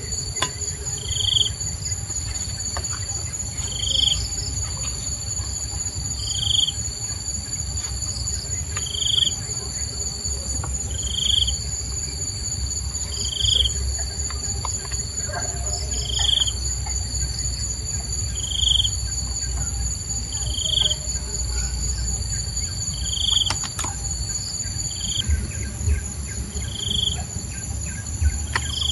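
Insects trilling in a steady, high, continuous chorus, with a short chirp repeating about every two and a half seconds and a low rumble underneath.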